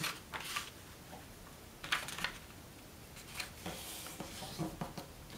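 A sheet of origami paper rustling and sliding under the hands as it is folded in half and the crease is smoothed flat, in a few short brushing swishes.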